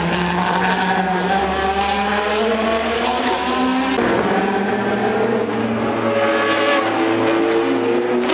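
Endurance-racing prototype cars running past at speed, their engines rising and falling in pitch as they go by. The engine sound changes abruptly about four seconds in.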